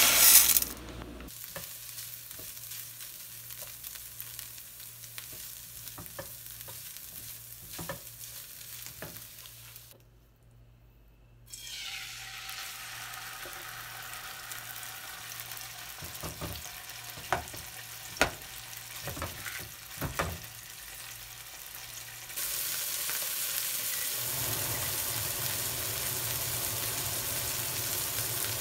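Dry rice poured from a packet into a pot in a short loud rush, then chicken breast sizzling steadily in a nonstick frying pan with a few sharp knocks. The sizzling grows louder for the last six seconds or so.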